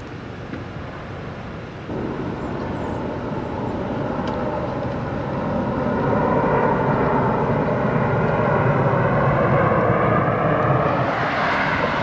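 Jet aircraft passing low overhead, its engine noise building from about two seconds in to a peak in the second half, with a whine that slides slowly down in pitch.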